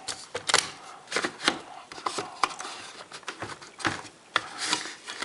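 A disc repair kit being handled: irregular sharp clicks and knocks, with some rubbing in between, as the disc and kit parts are worked by hand.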